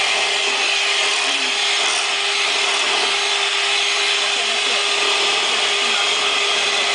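Electric hand mixer running steadily at its lowest speed, its beaters whirring through pancake batter with a constant motor hum.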